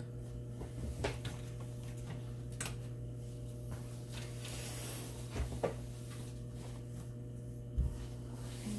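Room tone: a steady low hum with a few faint clicks and taps scattered through it.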